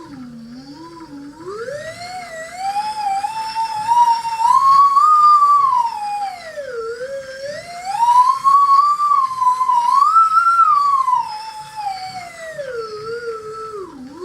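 Loudspeaker driven by a hand-cranked microwave turntable motor working as a generator through a power transformer, sounding a whistling tone whose pitch follows the cranking speed. It glides up twice to a high peak, about four and ten seconds in, dipping low in between and falling away near the end, like a siren.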